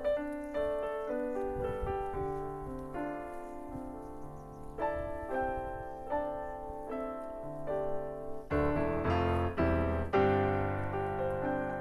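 Background piano music: a melody of separate notes over chords, with heavier low chords struck about nine seconds in.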